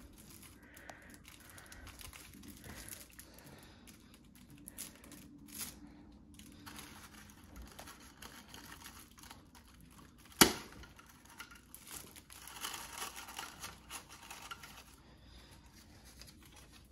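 Tissue paper crinkling and tearing as it is poked through and pulled out of punchboard cups, with small scattered crackles and one sharp snap about ten and a half seconds in.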